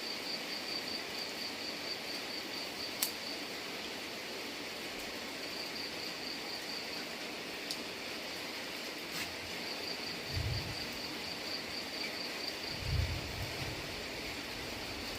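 Steady rain hiss, with an insect such as a cricket trilling in a high, pulsing tone that stops and starts in stretches. A few sharp clicks cut through it, and two short low thuds come in the last few seconds.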